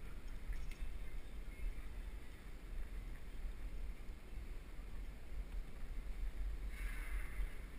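Wind buffeting a head-mounted camera's microphone while cycling over cobblestones, a steady fluttering low rumble, with a short hiss near the end.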